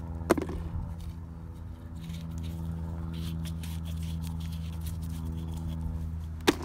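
A steady low engine hum, as from a motor idling nearby, getting a little louder about two seconds in. Light scuffing clicks over it, with one sharp click near the end.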